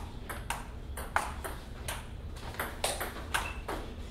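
Table tennis rally: the ball clicking off the paddles and bouncing on the table in a quick run of sharp clicks, about three a second.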